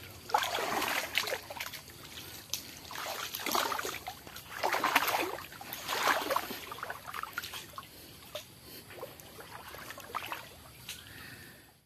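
Shallow, muddy creek water sloshing and trickling in irregular swells. It is louder over the first six seconds and quieter after.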